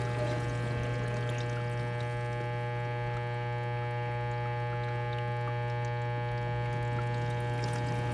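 KitchenAid KDTE104ESS1 dishwasher making a steady, loud, low electrical buzz while it runs, with water sloshing and spraying inside the tub.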